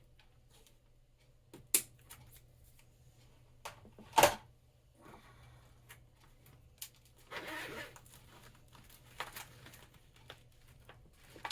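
A kit's packaging being handled and opened: scattered sharp clicks and snaps, with two louder snaps about two and four seconds in, and a short rustle of packaging about seven and a half seconds in.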